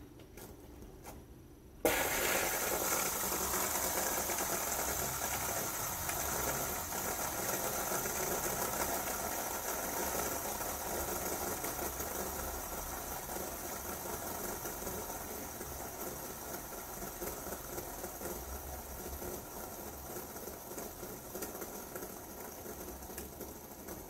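Yellow ABS-plastic three-arm LED fidget spinner flicked about two seconds in, then spinning flat on a wooden floor with a steady whirr from its bearing that slowly fades as it winds down.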